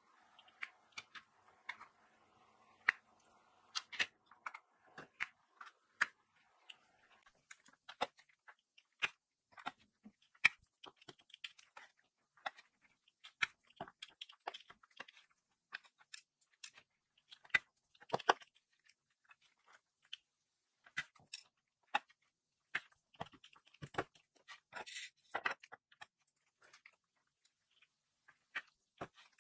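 Diamond-painting pen picking up round resin drills and pressing them onto the sticky canvas: irregular light clicks and taps, a little more than one a second, with a short burst of crackling about three quarters of the way through. A faint steady hum sits under the first few seconds.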